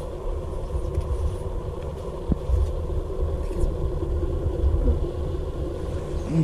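Wind buffeting the microphone: a low, uneven rumble that swells and dips.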